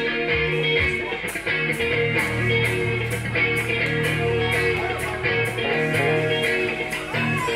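Live rock band playing a guitar-led song: electric guitar strumming a riff over low bass notes, with a steady, evenly spaced tick keeping time.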